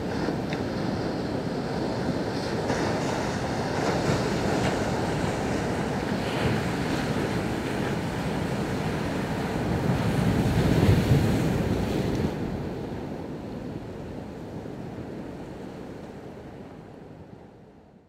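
Ocean surf breaking on a beach: a steady wash of waves that swells to its loudest a little past the middle, then fades out over the last few seconds.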